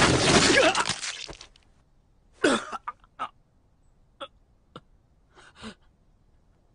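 A loud rushing sound fades away over the first second, then a male voice gives several short strained gasps and grunts, spaced about half a second to a second apart.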